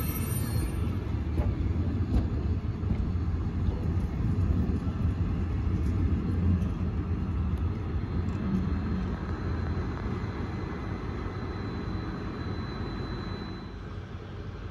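Train rumbling steadily on the tracks, easing off slowly over the last few seconds.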